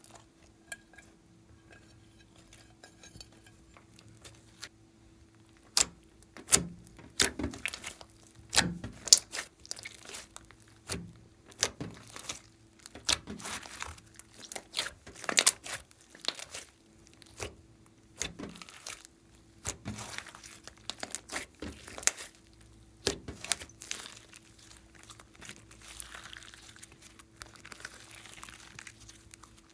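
Hands squishing, squeezing and stretching a large mass of glossy slime, giving irregular sticky pops and crackles.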